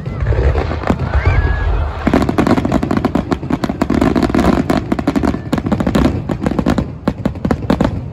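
Aerial fireworks: a shell bursts with a sharp bang at the start. From about two seconds in comes a dense, rapid crackling of many small pops over a deep rumble as crackling stars go off.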